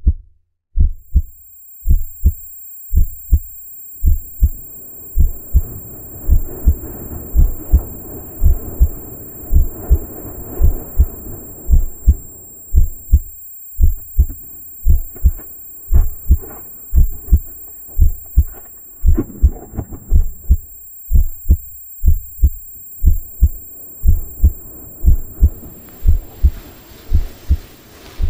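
Heavy, muffled heartbeat thumps at a steady pace, about one and a half beats a second, over a low rushing noise that swells in about four seconds in.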